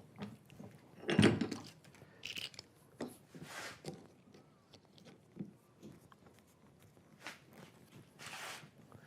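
Wooden plates being handled and seated into a bench vise's jaws: scattered light knocks of wood on wood and metal, with a louder knock about a second in, and a few brief rubbing scrapes.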